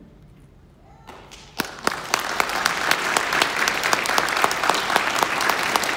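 After a brief hush, an audience starts applauding about a second and a half in, and the applause holds steady, with single claps close by standing out sharply.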